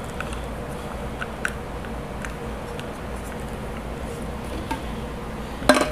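Faint, scattered light clicks and taps of a plastic flip-top bottle lid and straw being handled, over a steady low room hum. There is a louder cluster of sharp plastic clicks near the end.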